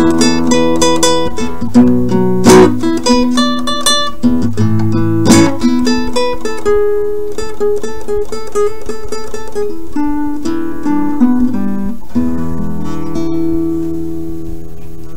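Background music played on an acoustic guitar: picked notes with a few sharp strummed chords, settling into a long ringing chord over the last few seconds.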